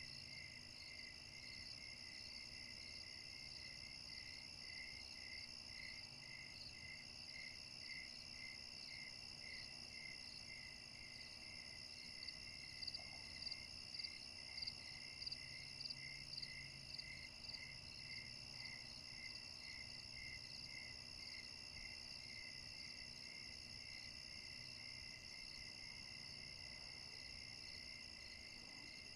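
Faint night chorus of crickets and other insects: several steady high trills layered together, one of them pulsing in an even chirping rhythm, with a few seconds of louder, higher chirps near the middle.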